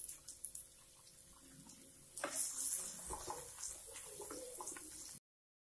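Chopped onions sizzling in hot ghee in a kadhai, a faint steady hiss. From about two seconds in, a silicone spatula scrapes and stirs them round the pan. The sound cuts off abruptly just before the end.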